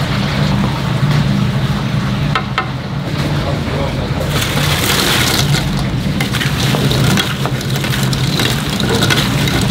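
A steady low machine hum under busy clattering and rustling noise, with indistinct voices in the background; the clattering grows denser about halfway through.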